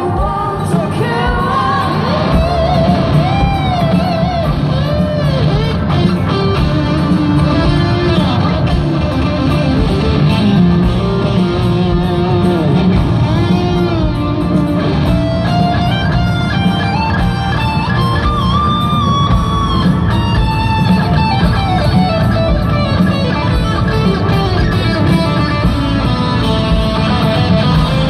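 Live rock band heard through a stadium PA from the audience: an electric guitar lead with bent notes over bass guitar and drums, with no vocals for most of the stretch.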